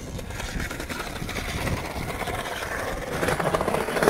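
Skateboard wheels rolling over paving stones: a steady rumble that grows louder and more rattly about three seconds in.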